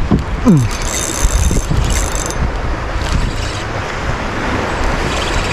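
Wind buffeting the microphone in a steady low rumble. A short falling squeal comes about half a second in, and brief high-pitched mechanical whirring follows about a second in and again near the end.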